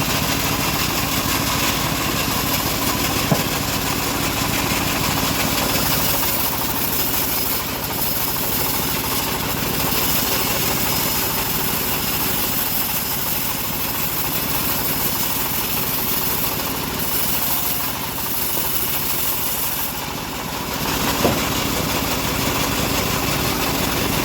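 Engine of a homemade bandsaw sawmill running steadily, with two brief sharp knocks, one about three seconds in and one near the end.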